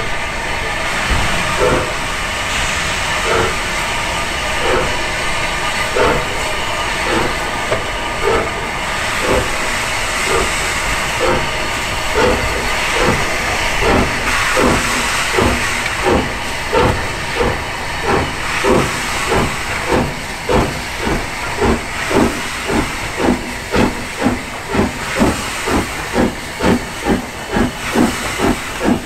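Steam locomotive pulling away under load, its exhaust beats starting slow and quickening to about two a second, over a steady hiss of steam from the open cylinder drain cocks.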